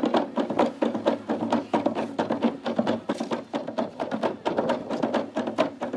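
Music with a fast, steady percussive beat.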